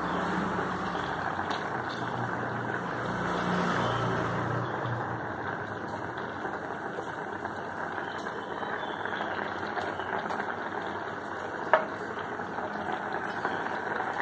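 Steady rushing noise of lit gas stove burners under cooking pots, with a single sharp clink a little before the end.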